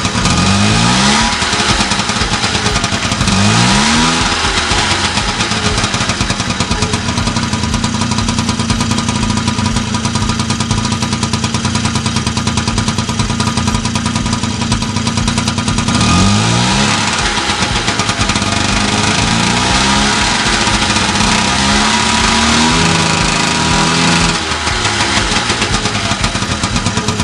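A 1978 Honda NC50 Express moped's 49cc two-stroke single-cylinder engine running through its stock, unmodified muffler. It is revved in quick rising blips about a second in, about four seconds in and again around sixteen seconds, held at a steady speed for about ten seconds in the middle, and revved up and down a few more times near the end.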